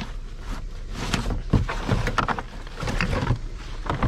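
Rummaging through a pile of discarded household junk: irregular clatter, knocks and rustling as items are moved and pulled out.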